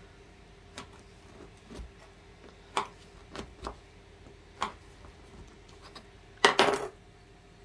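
Kitchen knife chopping soft Jijona turrón into cubes on a wooden board: separate sharp knocks as the blade comes down through the nougat onto the board, with a louder cluster of quick knocks about six and a half seconds in.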